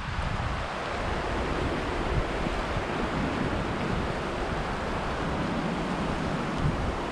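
Pecos River running over rocks: a steady, even rush of water.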